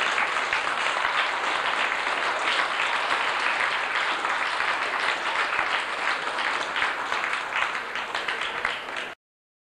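Audience applauding, a steady dense clapping that eases slightly and then cuts off abruptly near the end.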